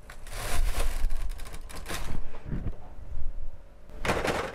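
Double-bed knitting machine carriage slid across the needle beds, knitting a row. A sliding rattle lasts about two seconds, then a shorter one comes near the end.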